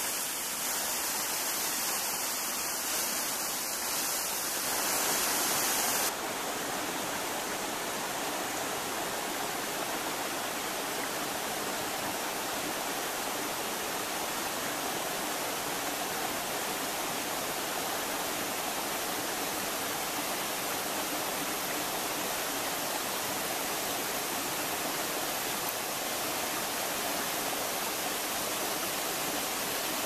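Water of a tall multi-tiered waterfall rushing steadily over rock. The hiss softens a little about six seconds in, then holds even.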